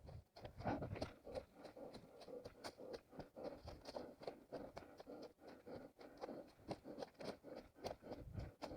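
Running footsteps on forest ground heard from a head-mounted camera, a steady rhythm of about three steps a second.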